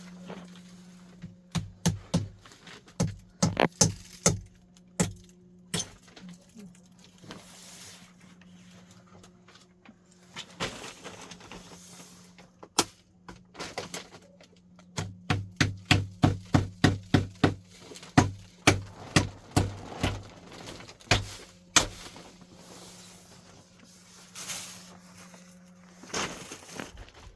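Hammer striking nails into wood, in quick runs of blows about two to three a second, in three bursts. A steady low hum runs underneath.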